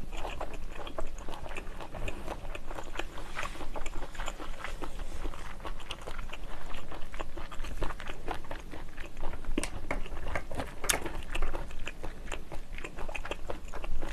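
Close-miked chewing of flatfish-fin (engawa) nigiri, a continuous run of wet mouth clicks and lip smacks.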